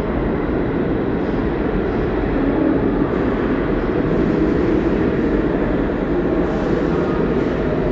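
Subway train running on a far track through an underground station. A steady, loud rumble of wheels and motors echoes off the station walls.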